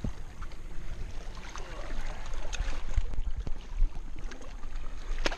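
Wind rumbling on the microphone over water lapping at jetty rocks, with scattered small knocks and clicks of handling and one sharp knock near the end.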